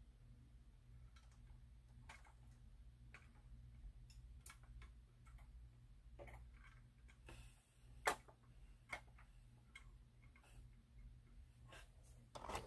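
Near silence: faint, irregular clicks and ticks from a working model gantry crane being operated and a container handled into it, over a low steady hum. One sharper click comes about eight seconds in.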